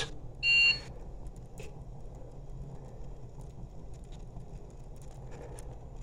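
A short electronic beep from a handheld infrared thermometer about half a second in, as it is triggered to take a reading. A faint steady low rumble runs underneath.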